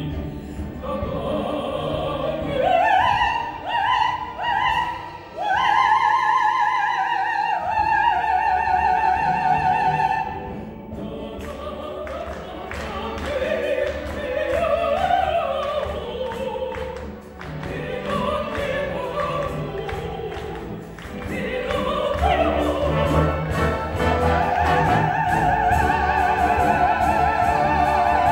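Operetta number: a mezzo-soprano singing with wide vibrato over a theatre orchestra. She holds long high notes from about six seconds in and again over the last few seconds.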